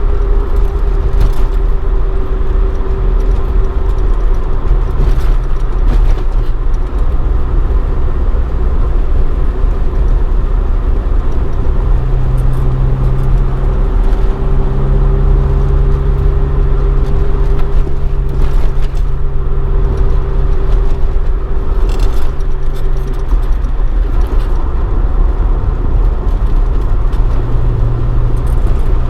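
Toyota AE86 Sprinter Trueno with a swapped AE111 20-valve 4A-GE engine on individual throttle bodies, running at a steady cruise through a Fujitsubo Legalis R exhaust. The engine note holds fairly even, with road noise and a few light rattles.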